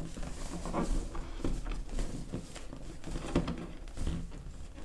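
Inflated latex balloons handled by hand, rubbing against one another with a few soft knocks, as fishing line is threaded through a four-balloon cluster.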